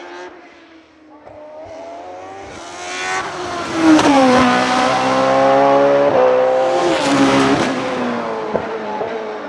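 A hillclimb racing car's engine at high revs, climbing in pitch and growing loud as the car approaches and passes. The note drops sharply about four seconds in and again near the end before fading.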